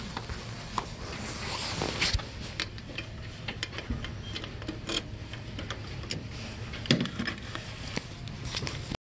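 Handling noise and footsteps from a walking, hand-held camera, heard as scattered light clicks and knocks over a steady low hum, with one louder knock about seven seconds in. The sound cuts off abruptly just before the end.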